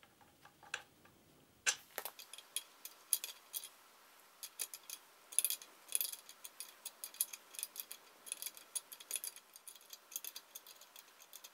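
Steel spanner and nuts clicking and clinking on the flange bolts as a Land Rover Series 3 swivel ball is bolted to the front axle casing. The quick, irregular metallic ticks start about two seconds in.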